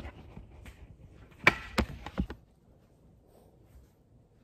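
Knocks and bumps of a phone being handled and set down: three sharp knocks about a second and a half to two and a quarter seconds in, the first the loudest.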